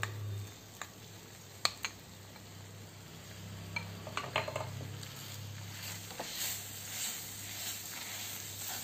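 A spoon scraping coarsely ground moong dal out of a glass bowl into a pan of hot oil and spice paste, with a few sharp clinks, then a wooden spatula stirring the dal through the mixture as it sizzles softly.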